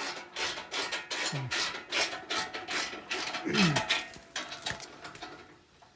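Hand ratchet wrench clicking steadily, about three or four clicks a second, as it runs nuts onto the bumper's mounting bolts, dying away near the end. A short falling vocal sound about three and a half seconds in.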